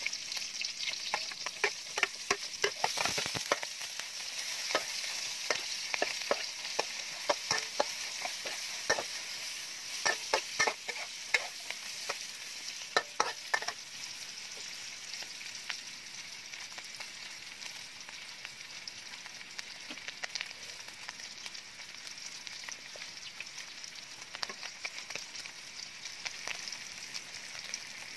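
Pork belly sizzling in hot oil in a steel wok, with a metal spatula scraping and clacking against the pan. The spatula strokes come in quick runs during the first half, then the steady sizzle carries on with only a few scrapes.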